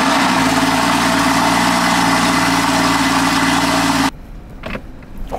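Porsche Cayman S (981) 3.4-litre flat-six idling steadily moments after starting, heard from behind at the twin exhausts. The engine sound drops away abruptly about four seconds in, leaving a much quieter background.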